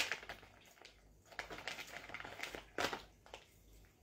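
Faint rustling and crinkling of a paper tissue being handled, with a short louder rustle near three seconds in.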